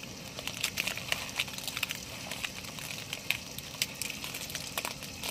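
Fresh banana leaves crinkling and crackling as they are folded by hand into a packet, a dense run of sharp, irregular clicks.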